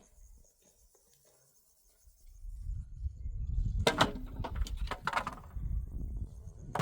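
Sharp knocks, a quick run of them about halfway through and one more at the end, over a low rumble that sets in about two seconds in.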